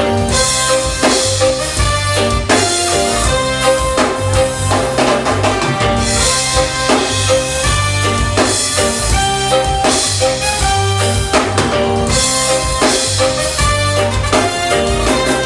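Live reggae band playing a steady groove: a drum kit keeps the beat under a repeating bass line and sustained melodic notes.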